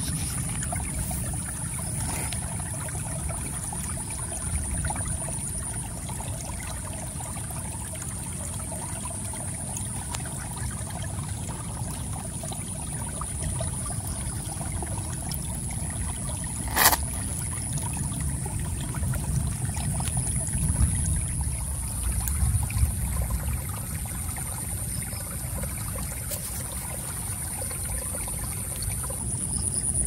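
A small stream trickling over rocks, with crickets trilling in a steady high pitch. A single sharp click about halfway through.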